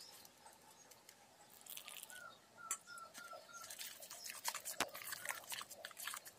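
Metal spoon stirring and mashing a thick batter of lentil paste and gram flour in a stainless steel bowl: wet squelching and scraping, with frequent clicks of the spoon against the bowl.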